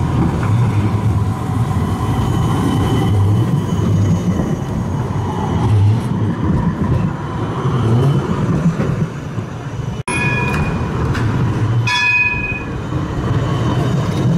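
GVB Amsterdam tram running past with a steady low rumble. After a sudden break near the middle come two short high-pitched ringing tones, about a second and a half apart.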